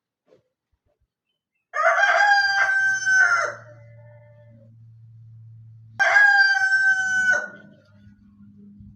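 Rooster crowing twice, each crow about a second and a half long, the second starting about four seconds after the first.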